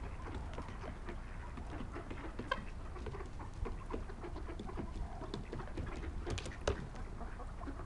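A mixed flock of wild turkeys and mallard ducks feeding close by: soft clucks and short calls over a steady patter of small taps and rustles as they peck and walk through the grass. A quick cluster of sharper clicks comes about six and a half seconds in.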